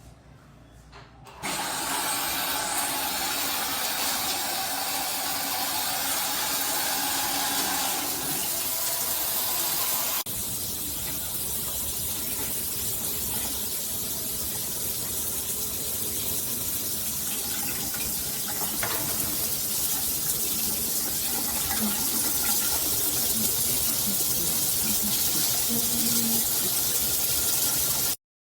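Water spraying from a Gabrylly shower system's heads: a steady rushing hiss that starts suddenly about a second and a half in. The spray changes about ten seconds in, then cuts off abruptly near the end.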